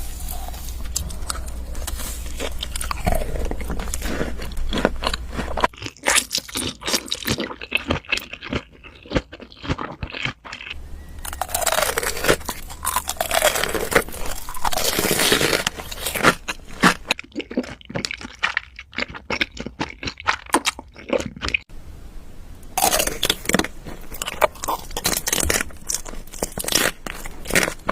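Close-miked ASMR eating: food being bitten and chewed with a dense run of crisp crunches and crackles.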